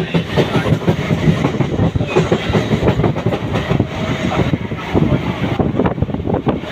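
Mumbai local electric train running, its wheels knocking rapidly and irregularly over the rails with a loud steady rumble beneath.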